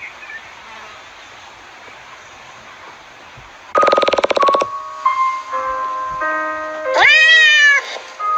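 Music: after a few seconds of low hiss, it starts about four seconds in with a short rapid stuttering buzz, then held electronic notes and a loud upward-swooping tone near the end.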